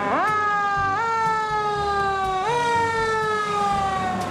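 Electronic siren wailing: the tone jumps up in pitch and slides slowly down, three times.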